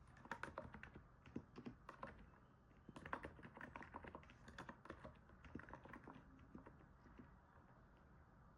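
Typing on a NIZ 68 Pro capacitive keyboard, keystrokes likened to stepping on snow. Quick runs of keystrokes come with a short pause about a third of the way in and thin out to scattered strokes near the end.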